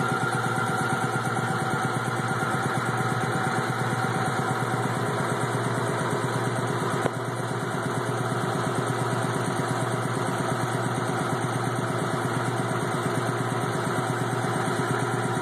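Wayne air compressor running steadily, with a fast, even pulsing.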